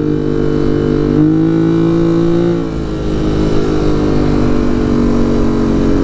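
ATV engine running at low revs, picking up slightly about a second in and dropping back a little before three seconds.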